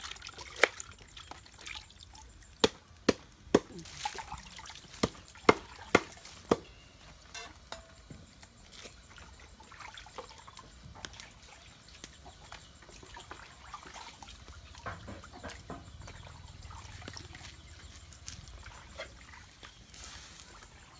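Kitchen knife chopping on a round wooden chopping board: sharp, uneven knocks about every half second for the first several seconds, then quieter handling with water sloshing as hands work in a plastic bucket.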